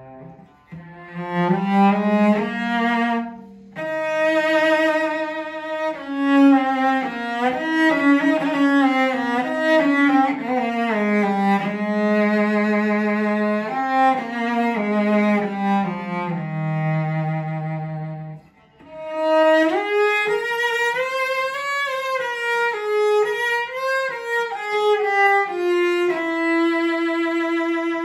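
Solo cello, a 1961 bench-made Lawrence Cocker 'Tertis Model' English cello, bowed in a slow melody with vibrato. The playing comes in phrases with a brief break after about four seconds and another past the middle, climbing higher after the second break and ending on a long held note.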